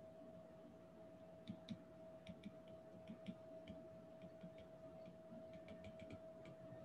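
Faint, irregular ticking and tapping of a stylus tip on a tablet's glass screen as words are handwritten, over a faint steady tone.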